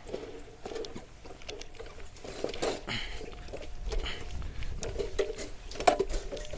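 Irregular scraping, rattling and knocking of a drain snake's cable being worked and pushed into a sewer drain line, with a low rumble a few seconds in and again near the end.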